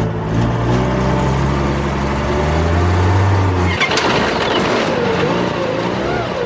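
Truck engine running hard with a steady rushing noise, as a vehicle works to get free of soft sand. The low engine note drops away a little before four seconds in, followed by a sharp knock, then a wavering note that rises and falls.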